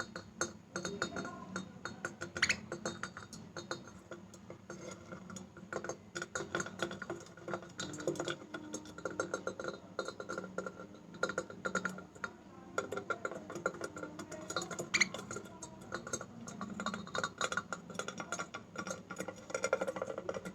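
A metal kitchen utensil clinking and tapping in many quick, irregular light strikes.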